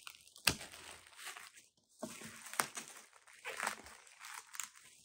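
Plastic bubble wrap and tape crinkling and rustling as a wrapped package is handled, with scattered sharp clicks, the loudest about half a second in and another about halfway through.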